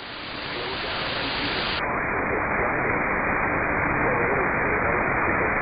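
Steady radio static hiss from a receiver after the relayed weather message cuts off, building up over the first second; about two seconds in the hiss turns duller as its top end narrows.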